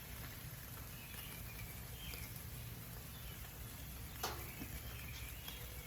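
Faint outdoor ambience with a few short, high bird chirps, and one sharp click a little past four seconds in.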